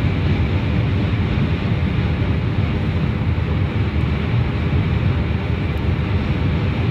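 Steady road noise heard inside a moving car on the highway: a constant low tyre rumble with wind hiss, no change in level.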